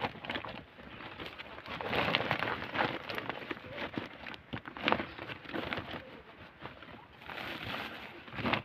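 Hands digging through soil and stones in a woven plastic sack: the sack rustles and the dirt and rocks crunch and clatter, louder around two and five seconds in.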